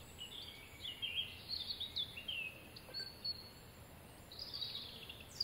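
Songbirds singing: a string of quick, varied chirps and warbled phrases with a short pause a little after the middle.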